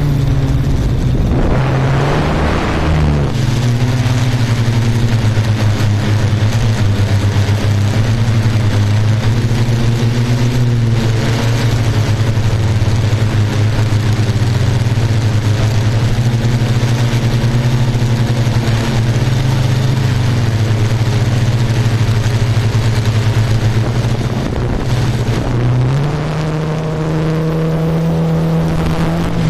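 Multirotor drone's motors and propellers humming steadily, with a short rush of noise in the first few seconds; the pitch drops about three seconds in and rises again near the end.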